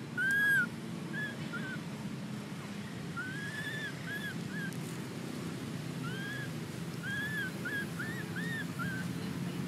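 Infant long-tailed macaque crying: about a dozen short, high-pitched arched whimpering calls. The loudest comes right at the start, the rest follow in clusters of two to five.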